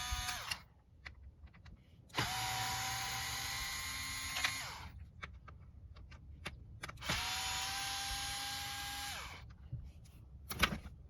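Small electric screwdriver backing out Phillips screws from a plastic armrest trim panel. It whirs in three runs: the end of one about half a second in, then two more of about two and a half seconds each, each winding down in pitch as it stops. Light clicks come between the runs.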